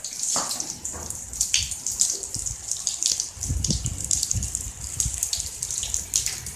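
Steady rain falling on a wet concrete yard: a continuous high hiss scattered with many small drop splashes, with a few low rumbles about halfway through.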